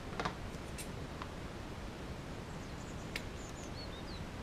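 Quiet handling of a rubber drive-shaft boot with a few faint clicks, the sharpest about three seconds in, as scissors snip its end off.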